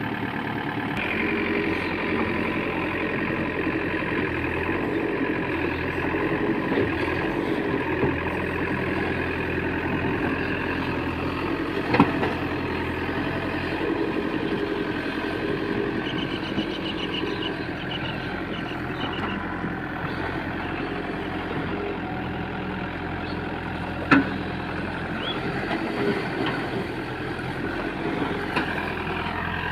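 Diesel engine of a JCB 3DX backhoe loader running steadily while loading mud, with two sharp knocks, one near the middle and one about four-fifths through.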